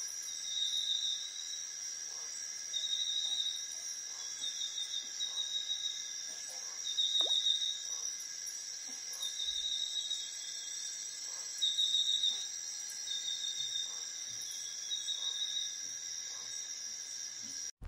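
Insects in forest ambience: a steady high-pitched drone, with a short pulsing trill repeating every second or so.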